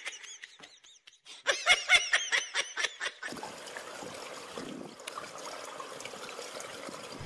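A person laughing in quick repeated bursts for about three seconds. After that comes a steady outdoor hiss with faint water sounds from a swimming pool.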